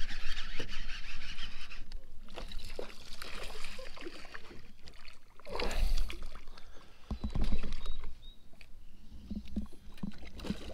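A hooked spotted bass splashing at the surface beside a kayak as it is reeled in, with louder bursts of splashing about six and again about seven and a half seconds in.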